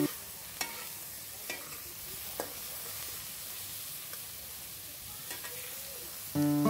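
Sliced kepayang nuts and chillies sizzling in a hot wok while a metal spatula stirs and tosses them, with a few light clicks of the spatula against the pan. Background music comes back in near the end.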